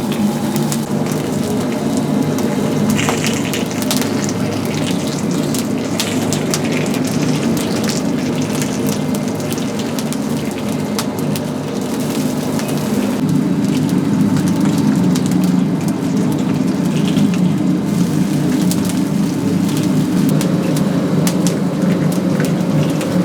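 Oak-wood fire crackling and chickens sizzling as they roast, many small pops and crackles over a steady low hum.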